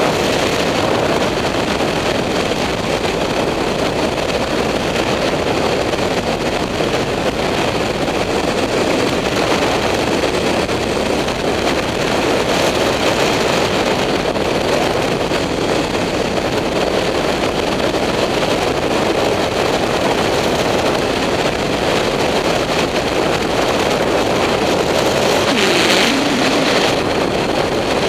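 Steady rush of wind and road noise at a helmet-mounted camera on a BMW F800GS motorcycle at cruising speed, with the motorcycle's engine underneath. The hiss swells briefly near the end.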